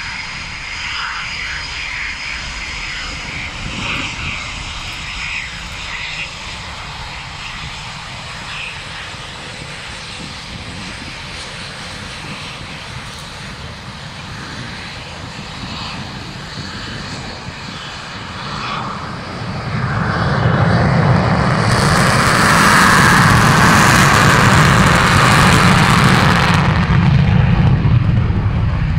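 Eurofighter Typhoon twin-jet engines running with a steady whine on the runway. About two-thirds of the way through, much louder jet noise builds as a Typhoon goes to full take-off power. It holds for several seconds, then eases off near the end.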